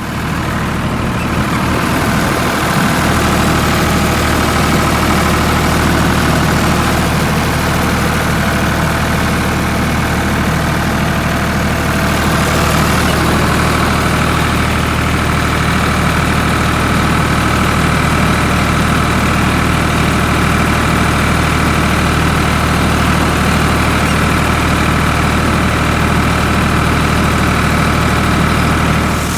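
Tractor engine running at a steady speed, a low, even drone.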